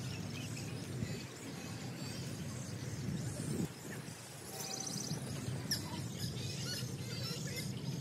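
Small birds chirping and calling over a steady low outdoor rumble, with a short fast trill about five seconds in and a quick falling chirp just after.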